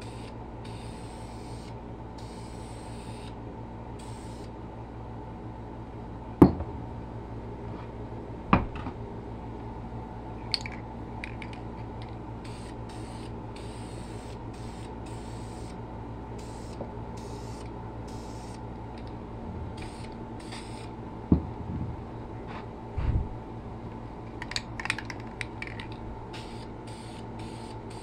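Aerosol spray-paint can spraying in short hissing bursts that stop and start again many times, with a few sharp knocks in between.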